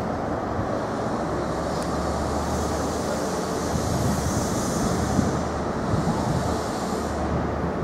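Class 43 HST power car's diesel engine running with a steady low hum as the InterCity 125 moves slowly along the platform.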